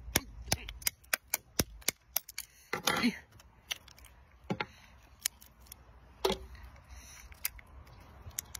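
Sharp, irregular clicks and cracks of a cooked brown crab's shell being pried and broken open with a fork and fingers, thickest in the first two seconds and sparser after.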